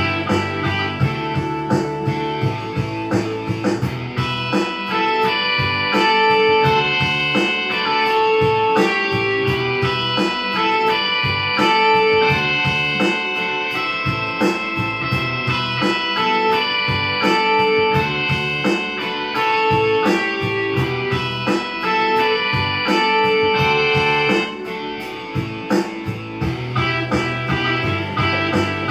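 Digital rock instrumental: a digital piano played live over a pre-recorded backing track, with a steady beat under repeating riff notes. The deep bass thins out about four seconds in and comes back strongly near the end.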